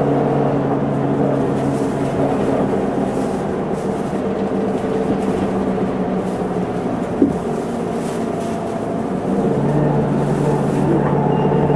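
An Isuzu Erga city bus's diesel engine running under way, with road noise. The engine note eases about a second in and comes back stronger near the end, with a single click about seven seconds in.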